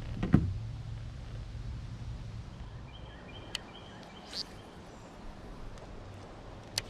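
A single hard thump near the start, over a low rumble of water and hull noise that fades, then a faint chirping bird call about three seconds in, a brief swish, and a sharp click near the end.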